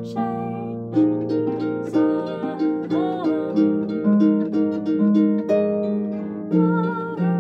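Concert pedal harp being played: plucked chords and melody notes in quick succession, each ringing on under the next.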